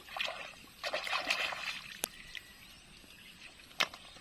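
Water sloshing and splashing in two short spells, followed by two sharp clicks.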